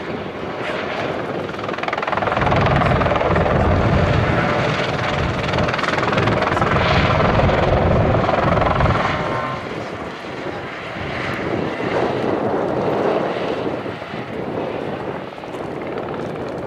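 Airbus EC120B helicopter flying a display, its rotor beating loudly. The sound is strongest from about two seconds in until about nine seconds, then fades and swells again as the helicopter manoeuvres.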